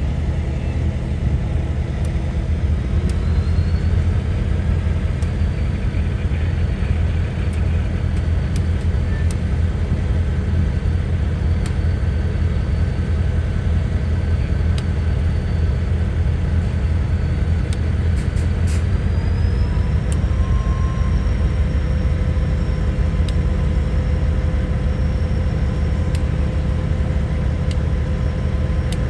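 Heavy engine running with a steady low rumble. A whine rises in pitch about three seconds in and again near the middle, then holds, as the engine is worked harder.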